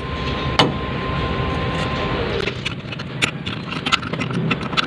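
Scattered sharp metallic clicks and taps of a hand wrench working the power steering pump's mounting bolts. A steady vehicle rumble runs underneath and drops away about halfway through.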